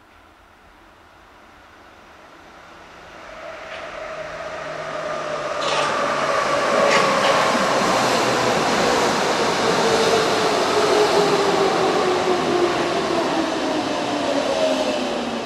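Hamburg U-Bahn DT3 train running into the station from the tunnel, growing loud over the first six seconds. A whine falls steadily in pitch as it slows, with a few sharp clicks from the wheels.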